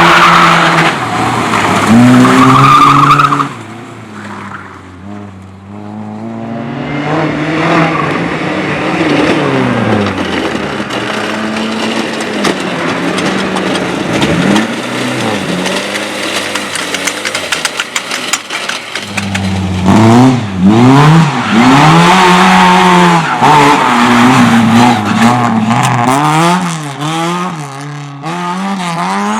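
Car engine revving hard up and down, with tyres squealing as the car slides through drift and slalom runs. Loud at first, it falls away for a few seconds, then builds back up, with hard, rapidly rising and falling revs again in the last third.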